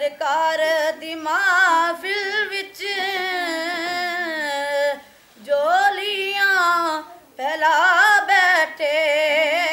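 A boy singing a Punjabi naat (devotional praise song) unaccompanied, in long held notes with a wavering vibrato. The phrases break off briefly about five seconds in and again a couple of seconds later.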